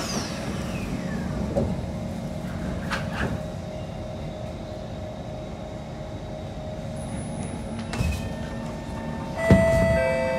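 Kawasaki C151 metro train's doors sliding shut with a few knocks, with a steady hum while it stands. About nine seconds in, the traction motors start with a sudden loud onset and an electric whine that climbs steadily in pitch as the train pulls away.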